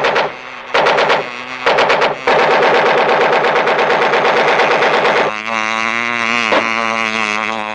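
A rhinoceros beetle's wings buzz in a low drone in a cartoon sound effect. In the first two seconds the drone is broken by sharp bangs, and in the middle by a few seconds of rapid rattling like machine-gun fire, before the buzzing drone comes back.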